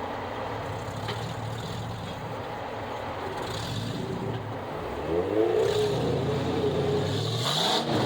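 Off-road vehicle engine running at low revs, then revving up about five seconds in and again near the end.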